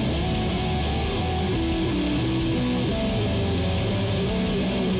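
Background music led by guitar, a melody of held notes moving up and down over a steady bass.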